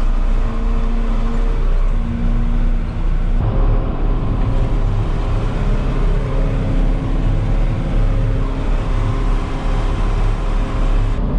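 Tractor engine running steadily at road speed, heard from inside the cab: a loud, even drone with a steady hum, whose tone shifts abruptly about three seconds in.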